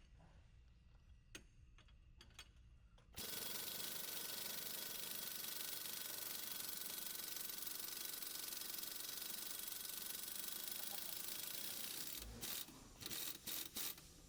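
Power wrench on a 21mm socket running for about nine seconds as it spins out a lower strut bolt on a Sprinter front suspension, starting and stopping abruptly, then a few short trigger blips near the end. A few light clicks before it starts.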